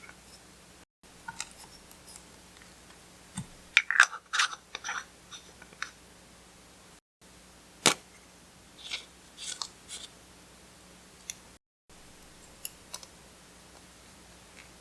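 Clear slime being mixed and pressed, giving sparse sticky clicks and crackling pops, with a dense run of crackles about four seconds in and a sharp single pop near eight seconds.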